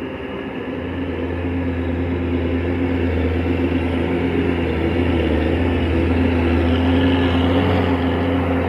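A heavy machine's engine running steadily with a deep hum, growing gradually louder.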